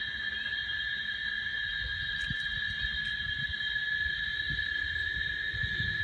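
Cicadas singing in chorus: a steady, unbroken high-pitched drone.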